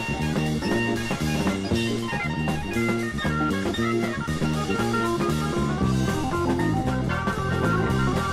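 Rock band music: guitar and drum kit over a stepping bass line.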